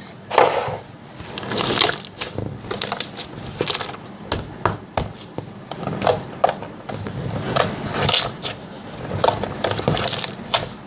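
Slime being pressed and squished by hand, giving irregular sticky clicks and small pops as trapped air bubbles burst.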